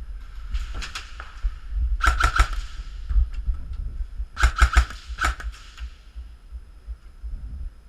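Airsoft guns firing in quick strings of two to four shots, several times over, with a low rumble throughout.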